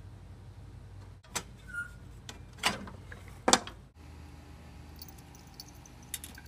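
A few sharp clicks and clunks of hand tools and metal parts being handled while a lawnmower engine is taken apart, the loudest about three and a half seconds in, over a steady low hum.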